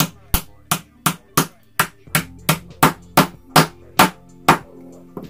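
A mallet tapping brass-coloured metal bushings into a 3D-printed plastic block, struck about a dozen times at a steady pace of roughly three blows a second. The blows stop near the end, after one last light tap.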